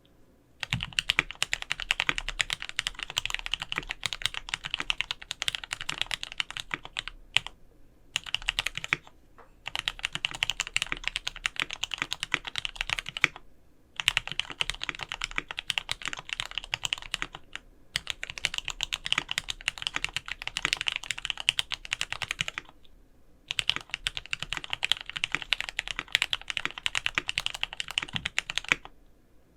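Fast typing on a gasket-mounted Monstargear XO K80 aluminium mechanical keyboard with lubed Gateron Mini switches, an aluminium plate and Enjoypbt PBT keycaps. The key clacks come in a dense, rapid run, in several bursts broken by short pauses.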